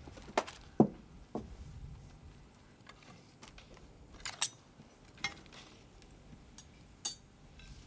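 Cutlery and dishes clinking as people eat: scattered light clinks and knocks of utensils against plates and glass.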